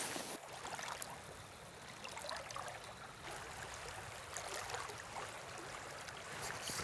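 Shallow sea water rippling and trickling in a fast current around a wading angler's legs, a steady light wash with faint scattered splashes. A brief loud rush right at the start.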